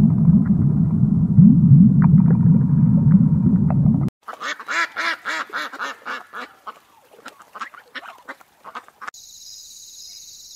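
A loud low rumble for the first four seconds, then a mallard duck quacking in a quick series of quacks that slow and thin out. About nine seconds in, a steady, high, pulsing buzz takes over.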